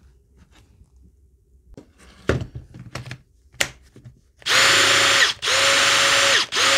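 Milwaukee M18 cordless drill run in three short bursts at full speed, each with a steady motor whine that winds up and then down; the last burst starts near the end. The drill is being test-run on a freshly repaired M18 5Ah battery, showing the battery now powers the tool. Before the bursts come a few knocks and clicks as the battery is handled and fitted to the drill.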